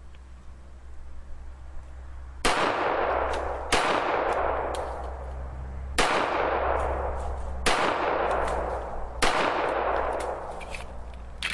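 Five shots from a Para-Ordnance GI Expert .45 ACP 1911 pistol, fired at an uneven pace one to two seconds apart, each followed by a long echo that dies away.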